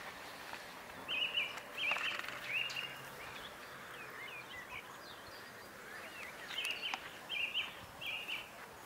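A songbird singing: a short high two-part note repeated several times in quick succession, in two runs, one about a second in and one in the second half, over a steady outdoor background hiss.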